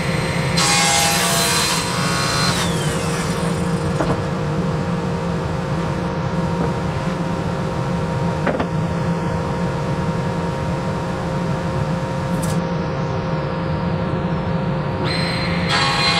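Sliding table saw running with a steady motor hum and blade whine, cutting a red oak board about a second in and again near the end, each cut a brief burst of hissing saw noise.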